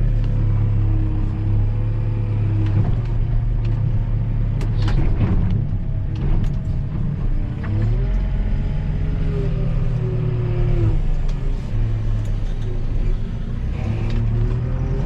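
Diesel engine of a farm loader running and revving up and down as it works, its pitch rising and falling several times, with a few sharp knocks about five and six seconds in.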